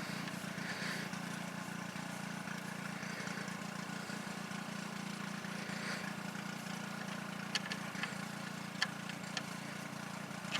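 A steady low mechanical hum, with a few light, sharp metallic clicks in the last few seconds as a wrench works the oil drain bolt on a Kubota BX tractor.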